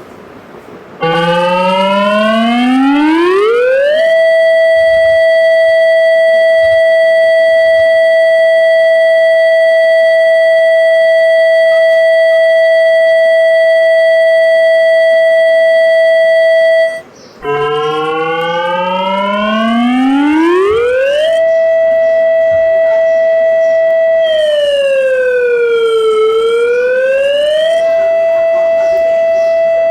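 Warning siren of an emergency alert, in the style of a civil defense siren. It winds up to a steady high tone and holds it for about thirteen seconds, then cuts off abruptly. It winds up again, dips down in pitch and comes back up, and begins to wind down near the end.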